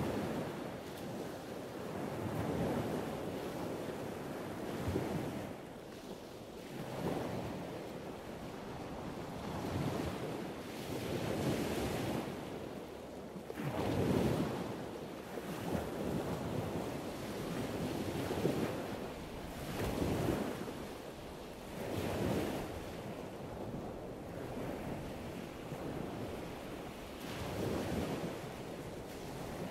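Ocean waves washing in, a rushing noise that swells and falls every couple of seconds.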